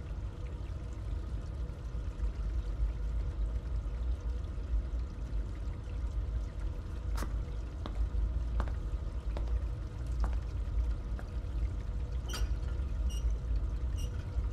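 Steady low ambient rumble with a faint hum, broken by sparse, scattered faint clicks and ticks that come more often in the second half.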